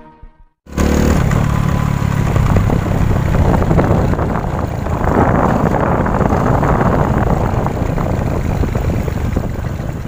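Small motorcycle engine running steadily while being ridden, mixed with wind and road noise. It starts abruptly after a brief silence at the start, under a second in.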